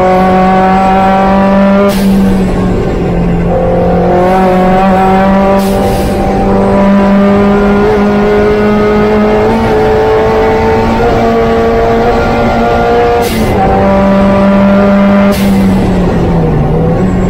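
Opel Speedster's four-cylinder engine at full throttle, heard onboard: its pitch climbs steadily through each gear, broken by several upshifts where the sound cuts briefly and drops before climbing again, over constant road and wind noise.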